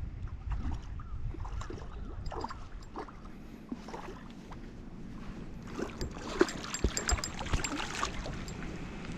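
Water splashing and sloshing close by, with a burst of sharper splashes and clicks about six to eight seconds in.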